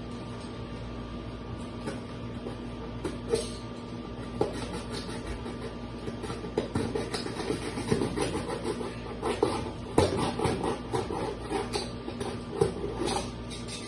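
Cardboard box being cut and worked by hand: irregular scrapes, creaks and taps of cardboard, thickest in the second half, over a steady background hum.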